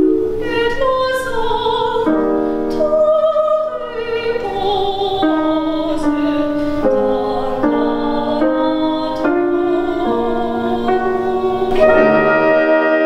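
Two female voices singing a classical duet with vibrato over piano accompaniment. Near the end the music changes to long held notes from wind instruments.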